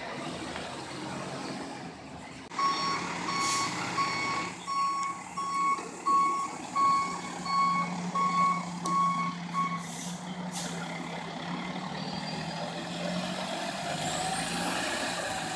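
Recycling truck's diesel engine running steadily while its backup alarm beeps about a dozen times, a little under two beeps a second, as the truck reverses, stopping about ten seconds in. A short hiss follows near the end of the beeping.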